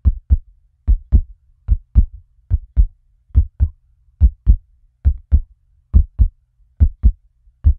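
Heartbeat sound effect: a steady lub-dub double thump repeating a little faster than once a second, with silence between the beats.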